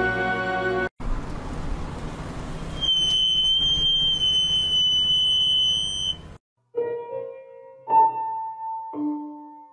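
Short edited meme clips in quick succession. First a brief buzzy held tone, then a stretch of noise with a steady high-pitched beep-like tone from about three seconds in, then a few separate piano notes near the end.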